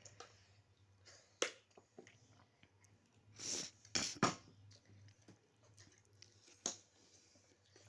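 Someone eating chicken macaroni: soft chewing with a few sharp clicks, and a short hiss about three and a half seconds in.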